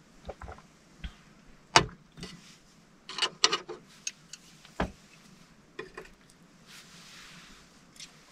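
Tableware handled on a small metal folding table: a sharp knock about two seconds in, a cluster of light clicks a second or so later as chopsticks are picked up, and another knock near five seconds, then a soft rustle of clothing near the end.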